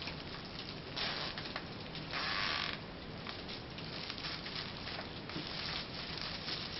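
Thin plastic merchandise bags rustling and crinkling as they are handled, with two louder rasping bursts, one about a second in and a longer one around two seconds in, typical of nylon zip ties being ratcheted tight around the bags and rope.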